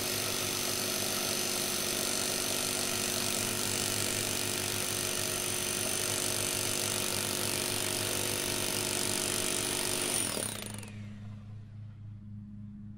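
Corded electric rotary hammer, set to hammer only, pounding a copper ground rod into rocky ground. It runs steadily, then is switched off about ten seconds in and its motor winds down.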